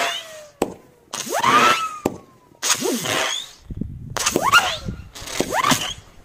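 Low-noise fireworks going off in quick succession: about six sudden starts, each followed by a hiss and a whistling tone that rises and then falls away.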